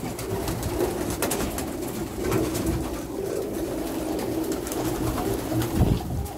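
Many domestic pigeons cooing together in a steady low murmur, with a few faint clicks and a thump near the end.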